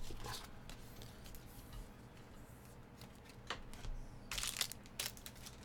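Quiet room with faint handling noises: a few light clicks, then about four seconds in a brief crinkle of a foil trading-card pack being handled.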